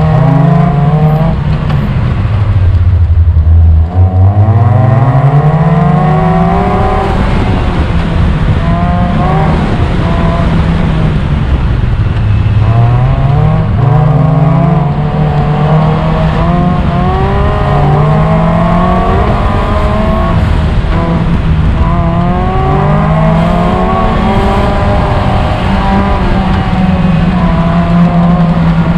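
A-Mod autocross race car's engine being driven hard, its revs climbing and dropping repeatedly as it accelerates, brakes and shifts through the course, with faint tire squeal.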